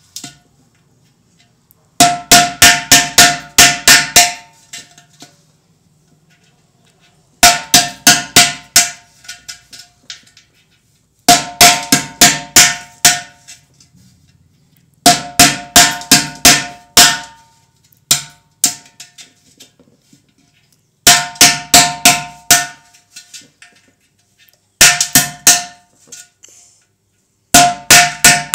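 Clay matka (earthen water pot) being struck, with pliers used as a hammer on a nail to punch holes through its wall. The strikes come in bursts of about two seconds, roughly four a second, with short pauses between, and the pot rings after each strike. The holes form a line so that the pot's top can be broken away.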